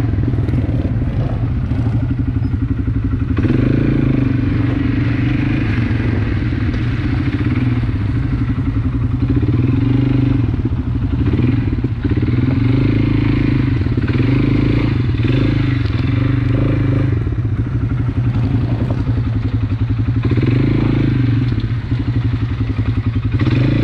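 ATV engine running while riding, its note rising and falling with the throttle.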